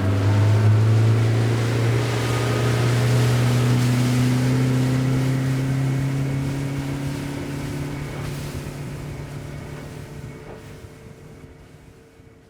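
Motorboat engine running underway, a steady drone over rushing water and wind noise, fading out gradually over the second half.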